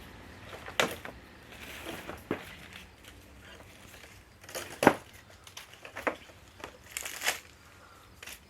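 Packaging being handled during an unboxing: crinkling wrap with irregular sharp clicks and knocks, the loudest about five seconds in.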